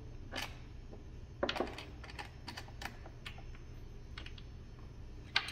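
Scattered light clicks and taps of a steel bolt being set into a hole in an MDF CNC wasteboard and worked by hand, over a steady low hum.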